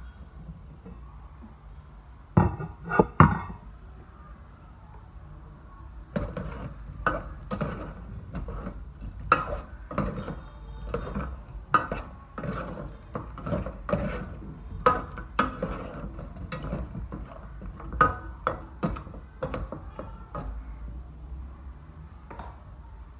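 Aluminium pot lid handled with a cloth, clattering a few times about two to three seconds in. Then a metal spoon stirring pork leg pieces in the aluminium pot, knocking and scraping against its sides in quick, irregular strokes for about fifteen seconds.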